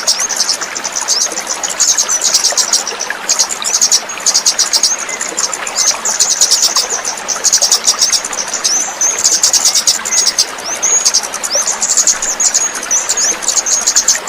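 A kemade songbird singing a fast, continuous chattering song of rapid high notes mixed with short slurred whistles, pausing only briefly. A steady rushing hiss runs underneath.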